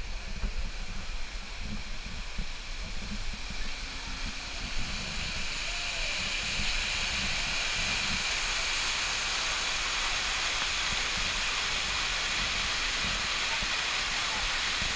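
Artificial waterfall pouring down a rock face, a steady rushing hiss that swells about five seconds in and then holds level.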